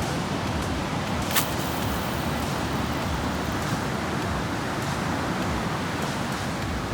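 Steady rushing of wind and ocean surf on the microphone, with one sharp click about a second and a half in.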